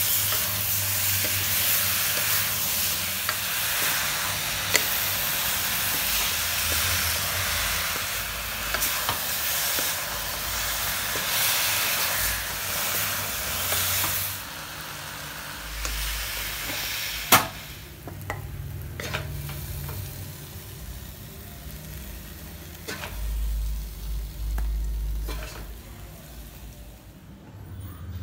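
Banana pieces sizzling as they fry in a non-stick wok while a wooden spatula stirs and scrapes them. About halfway through, the sizzle falls to a quieter hiss with occasional taps of the spatula, and there is one sharp knock a few seconds later.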